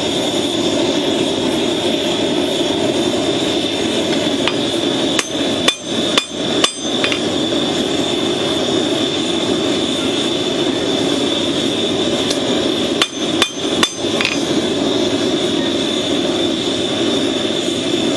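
Hammer blows on hot rasp steel in two short runs, four quick strikes about half a second apart and then three more, each with a brief metallic ring. A steady rushing noise from the running forge sounds throughout.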